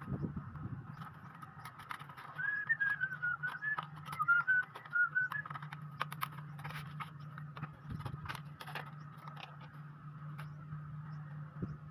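Scattered small clicks and taps from handling parts during a laptop repair, over a steady low hum. About two and a half seconds in comes a quick run of about a dozen short high-pitched notes lasting some three seconds.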